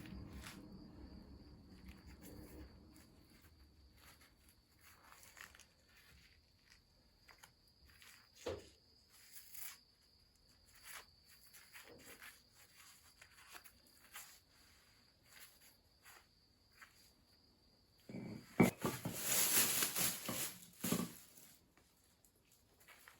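Knife shaving a hard piece of fatwood: scattered short scraping strokes, with a louder stretch of rough scraping about eighteen seconds in.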